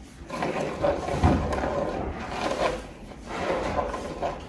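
A spoon scraping and pressing blended chile sauce through a plastic colander into a pot, wet rubbing and squishing in uneven strokes with a soft knock or two.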